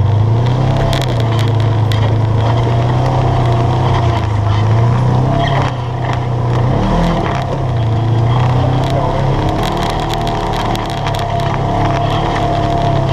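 UTV engine running steadily at low speed while crawling over rock, with a dip and brief pitch change about halfway through. Scattered clicks and rattles are heard over it.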